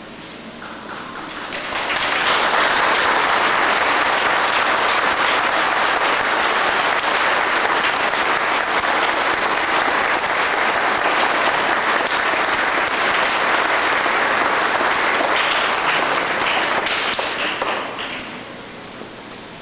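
A congregation applauding at length, swelling up about two seconds in, holding steady and dying away near the end.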